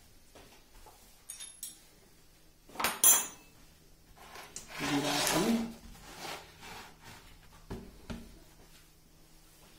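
A pine board being slid and shifted on a wooden workbench: wood scraping on wood, with a sharp clatter about three seconds in, a longer scrape around five seconds, and a couple of knocks near the end.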